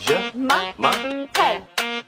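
Upbeat music track with a steady rhythm of short, pitched notes, about two to three a second.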